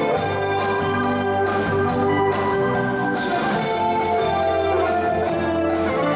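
Small electric band playing live: held keyboard chords over a long low bass note, with electric guitar and a drum kit keeping time.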